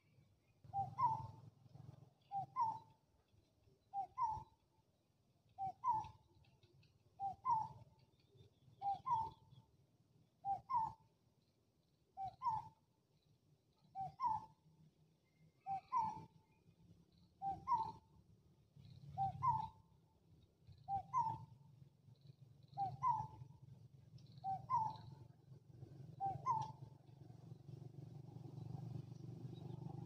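A bird repeating a short two-note call, a lower note then a higher, rising one, about every second and a half to two seconds, some sixteen times. A low steady rumble runs underneath and grows louder near the end.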